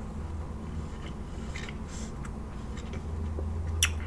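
Faint eating sounds: soft chewing and mouth noises over a steady low hum, with one sharp click near the end.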